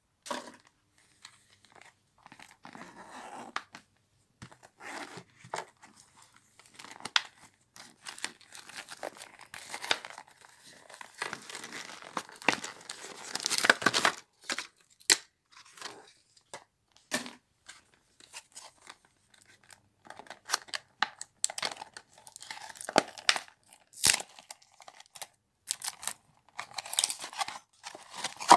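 Hands handling toy packaging: plastic crinkling, rustling and tearing, with many sharp clicks and taps in irregular bursts. The longest, loudest rustle comes about halfway through.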